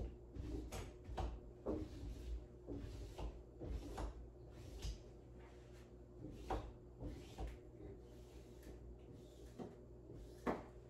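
Irregular light knocks and taps, about one a second, as wet window privacy film is pressed and smoothed onto the glass of a door, with one sharper knock near the end.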